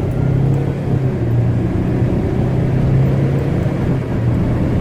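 Car engine running with road noise, heard from inside the cabin while driving: a steady low drone.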